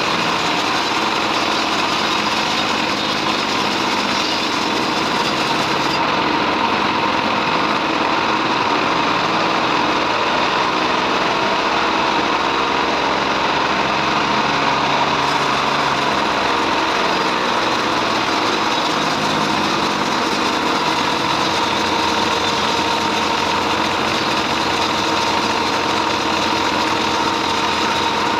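Bandsaw sawmill running steadily with its engine droning, sawing trembesi (rain tree) timber.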